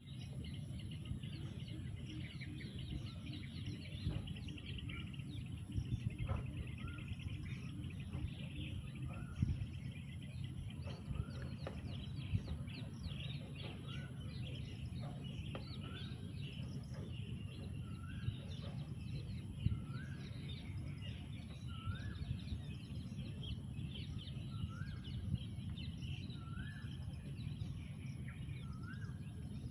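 Several birds chirping over a steady low background rumble, with one bird repeating a short rising note every couple of seconds.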